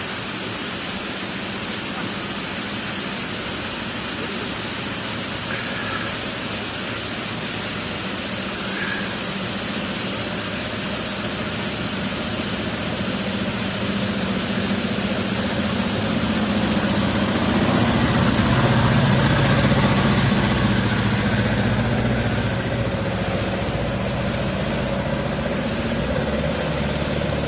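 Steady rush of water pouring through a sluice gate, with the small engine of a Vincent Amanda water scooter running beneath it. The engine grows louder from about halfway through and is loudest about two-thirds of the way in, as the scooter approaches and passes.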